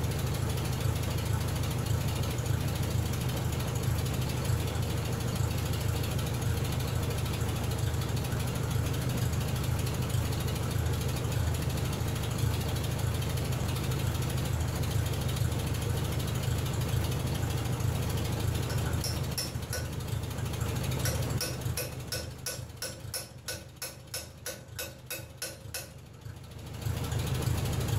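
A steady low hum, then from about two-thirds of the way in a run of rapid, even mechanical clicking, about five clicks a second for several seconds, which stops shortly before the end.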